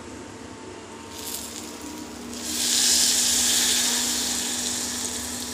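Hot water poured from a steel pot into a steel bowl of fried elephant foot yam pieces: a steady hiss that starts a little over two seconds in and slowly fades.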